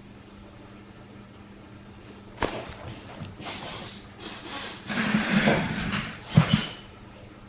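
Clothing rustling as a woman undresses, starting about two and a half seconds in, with two soft thumps near the end as the loudest moment.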